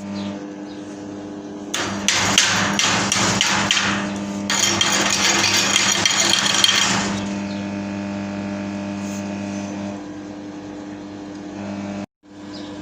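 A steady electrical hum, with about five seconds of loud, dense crackling and knocking metalwork noise starting about two seconds in.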